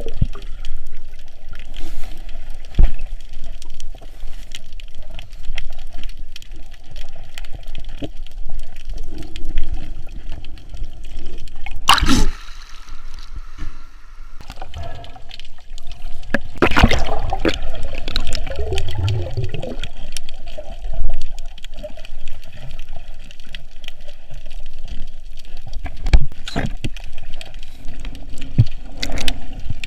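Seawater sloshing and gurgling around a snorkeler's camera, with scattered clicks and two louder surges of splashing, one about twelve seconds in and another about five seconds later.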